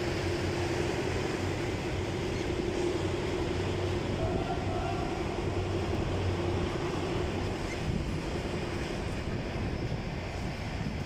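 Freight train of covered wagons and container flatcars rolling past close by: a steady rumble of wheels on rails with a humming tone that fades out near the end.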